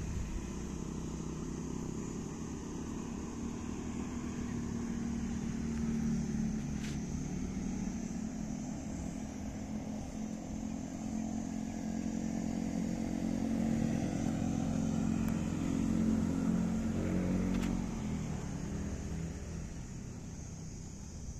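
An engine running steadily, its pitch and loudness swelling and easing, then dying away near the end.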